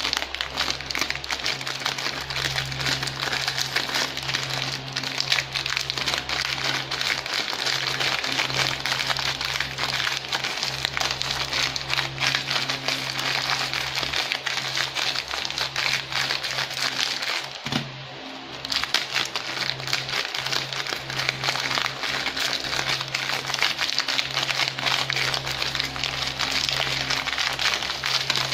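Skyflakes crackers crushed by hand inside their plastic packs: continuous crinkling of the wrappers and crackling of the crackers breaking, with a short pause a little past the middle.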